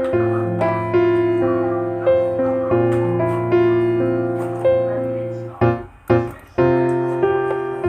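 Background piano music: a slow, gentle keyboard melody over sustained bass notes, with a brief pause about six seconds in.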